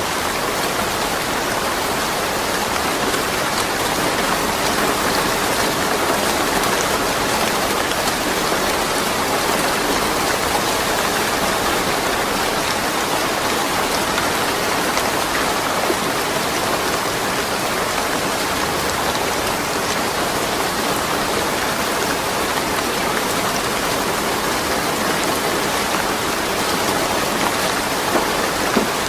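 Steady rain falling, a dense even hiss of drops on surfaces with no thunder.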